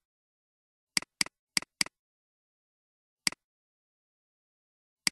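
Computer mouse clicks: four quick clicks in a row about a second in, one more about two seconds later and another at the very end, each a sharp double tick of button press and release, with dead silence between.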